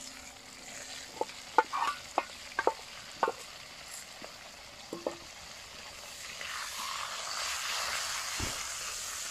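Garlic shoots stir-frying with pork in a wok. Utensils knock and clink against the wok a few times in the first five seconds, then a frying sizzle builds from about six seconds in.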